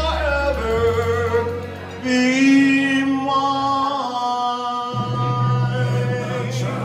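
A man sings a slow ballad into a handheld microphone in long, held notes with vibrato, over recorded backing music played through a PA speaker. These are the song's closing notes.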